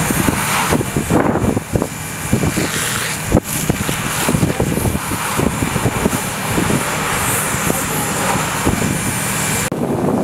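Steady hiss of a fire hose jet spraying water, with wind buffeting the microphone and a steady engine hum underneath; the hiss drops away abruptly near the end.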